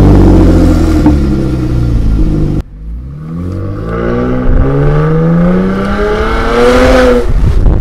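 Muffler-deleted 3.6 L Pentastar V6 of a Ram 1500 Classic, its exhaust settling to a steady idle after a rev. After a sudden cut, the engine is heard pulling away under acceleration from inside the cab, its pitch rising for about four seconds before falling away near the end.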